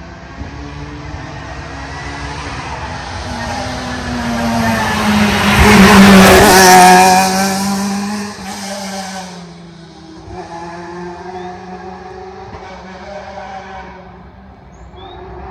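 A rally car's engine at speed, passing by. The note builds for about six seconds and peaks as the car goes past. It then drops in pitch and fades, with breaks in the note as the car shifts gear, and it can still be heard faintly in the distance near the end.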